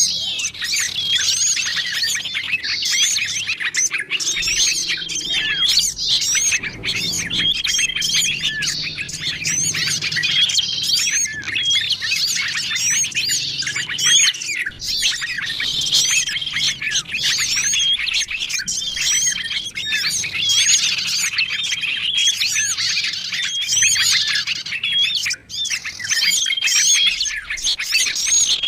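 Bird-lure recording of many small songbirds chirping, trilling and calling at once in a dense, unbroken chorus, with short repeated flat whistles recurring every few seconds.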